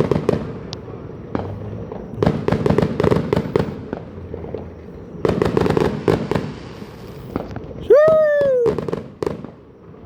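Fireworks going off repeatedly: a run of sharp bangs and crackling bursts, some close together. About eight seconds in a person lets out a loud drawn-out exclamation that falls in pitch.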